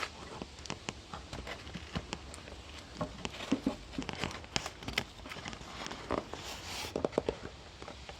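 Scattered small clicks, taps and rustles of hands working at a cardboard shipping box and its packaging, with a few sharper knocks.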